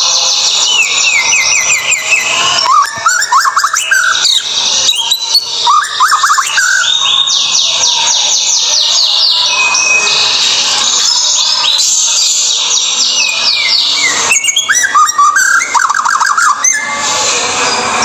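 White-rumped shama (murai batu) singing a fast, varied song. Long runs of rapidly repeated sharp, falling high notes alternate with lower whistled phrases, with brief pauses about four seconds in and again near fourteen seconds.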